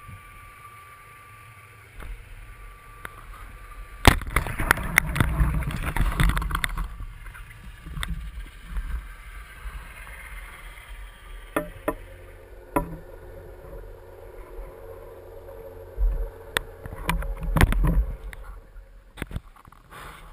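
Underwater sound picked up by a speargun-mounted camera: bursts of water rush and sharp knocks and clicks as the diver moves and handles the gun, loudest about four seconds in and again near the end, over a faint steady hum.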